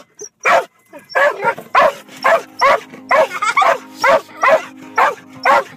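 Australian Cattle Dog barking in a fast, frantic string at the moving windshield wipers, about two or three barks a second.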